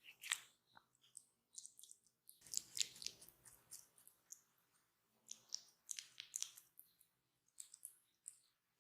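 Faint, irregular clusters of soft clicks and crackles from hands working on skin and hair close to the microphone, with short quiet gaps between clusters.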